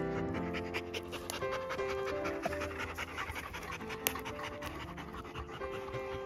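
Bernese mountain dogs panting over background music with held notes. A sharp click sounds about four seconds in.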